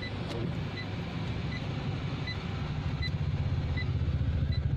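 A vehicle engine runs steadily and grows a little louder after about three seconds. A short high electronic beep repeats about every three-quarters of a second.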